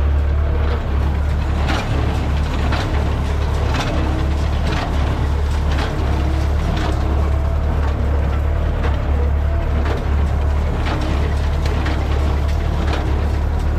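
Massey Ferguson 575 tractor's four-cylinder diesel running steadily under load, driving a New Holland 377 small square baler, with a sharp rhythmic knock about once a second from the working baler.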